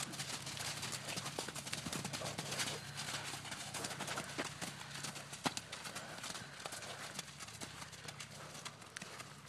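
Hoofbeats of horses cantering and trotting on soft dirt: a run of irregular thuds, with one sharper knock about five and a half seconds in.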